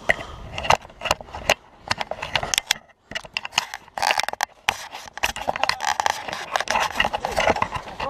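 Irregular clicks and scraping rubs close to the microphone, with a brief gap about three seconds in.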